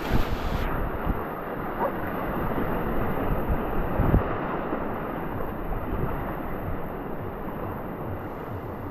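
River water rushing and splashing, with wind buffeting an action camera's microphone. The sound turns muffled about a second in and opens up again near the end.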